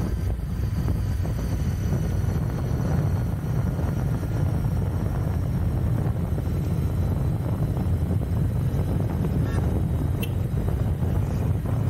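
Royal Enfield Continental GT 650's parallel-twin engine running at a steady cruise, with wind buffeting the camera microphone.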